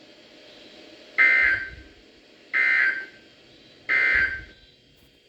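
Emergency Alert System end-of-message data tones: three short, identical two-tone digital bursts about a second and a third apart, the signal that closes the alert.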